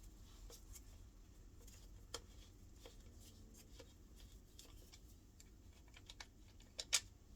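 Scattered light clicks and taps of a screwdriver working screws out of a washing machine's metal mount, with a sharper click about two seconds in and a louder one near the end.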